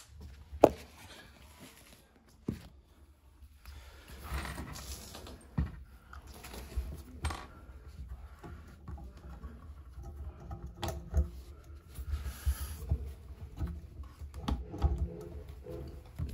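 Small scattered clicks, taps and scrapes of screws and a plastic shower-tray waste ring being handled as the clamping screws are started.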